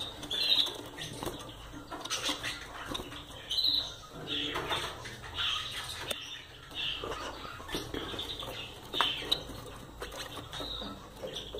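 Gouldian finches giving short, repeated chirping calls, mixed with rustling and light knocks of birds moving about the cage.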